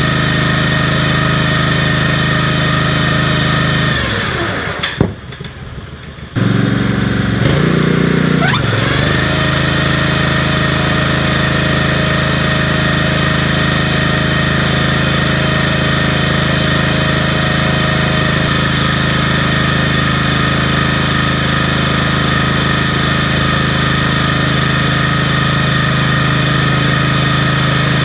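Grain auger's small engine running steadily. About five seconds in the sound drops away briefly, then the engine note comes back and rises to its steady speed.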